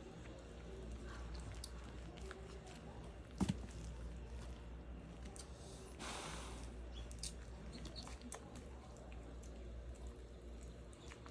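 Faint small sounds of young Australian cattle dog puppies moving about, with a sharp double knock about three and a half seconds in and a short rustle around six seconds in.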